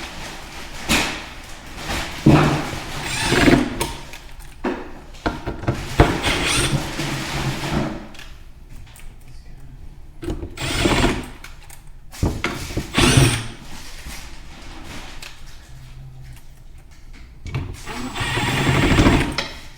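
Cordless drill/driver running in several short bursts, driving small screws into soft wood, with quieter handling clatter between the bursts.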